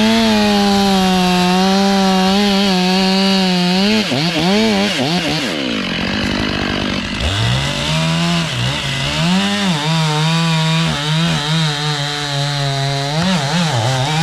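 Two-stroke chainsaw revved to full throttle and held there. About four seconds in, the revs swoop down and up for a few seconds, then climb back to a high steady note, with brief dips near the end as it cuts into a tree.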